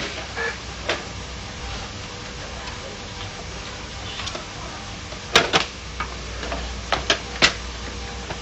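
Sharp clicks and knocks of an HP LaserJet 1010's plastic housing being handled and pried apart with a screwdriver. The loudest is a close pair a little past halfway, then three quick clicks about two seconds later.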